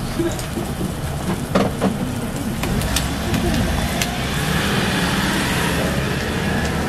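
Eggs, buttered bread and a ham patty sizzling on a hot flat-top griddle, a steady frying hiss with a low rumble underneath. A few sharp metallic clicks and taps come through, about a second and a half, three and four seconds in.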